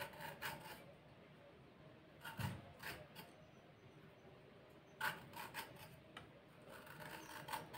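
Metal zucchini corer scraping along a raw zucchini's skin, shaping it. The sound is faint, in short groups of rasping strokes a couple of seconds apart.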